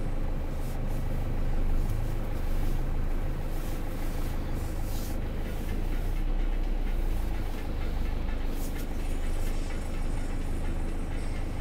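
Renault Master van's engine running at low speed, heard from inside the cab as a steady low hum while the van is manoeuvred slowly.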